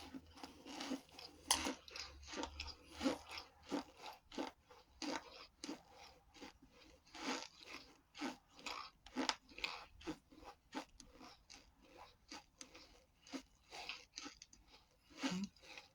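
Close-up crunching and chewing of hard, brittle chunks in a person's mouth: irregular crisp crunches about once or twice a second.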